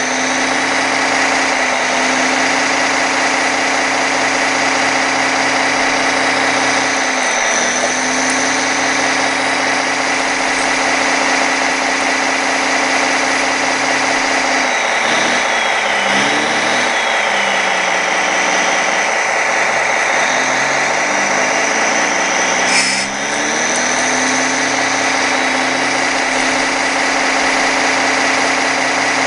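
Simulated diesel engine sound from a 1:16 radio-controlled excavator's sound module, idling and rising and falling in pitch several times as the machine works, over a steady high whine. A single sharp click about 23 seconds in.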